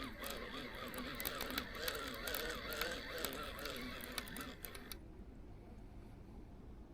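Many birds calling at once in a wavering, honking chorus, with scattered sharp clicks. The chorus cuts off suddenly about five seconds in, leaving a faint low hum.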